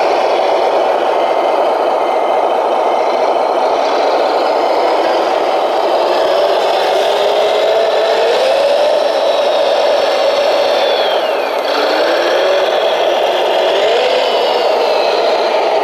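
Radio-controlled scale model Volvo wheel loader running steadily, its motor and hydraulic drive making a mechanical whine. Its pitch glides up and down as it drives and works the bucket, with a short drop about two thirds of the way through.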